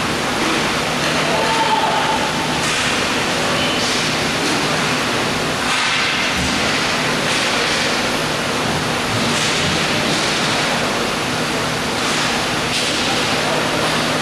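Roller hockey rink ambience during play: a steady rushing noise with a low hum underneath, and a few brief swells of scraping from the play.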